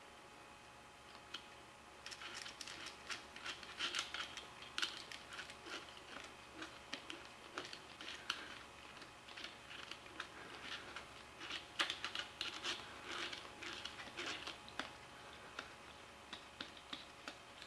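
Faint, irregular light clicks and crackles starting about two seconds in, as oil is squirted onto the Dodge NV4500 main shaft's tapered roller bearing and the shaft is worked and turned by hand in the bearing.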